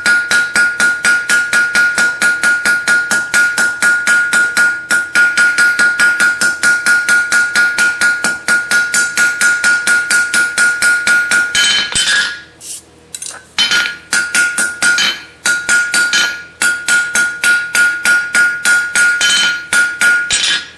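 Hand hammer striking a glowing 3/8-inch round bar on an anvil in quick, light planishing blows, about four or five a second, with the anvil ringing in a steady high tone. The blows smooth out a freshly drawn taper. The rhythm breaks for a second or two a little past halfway, then picks up again.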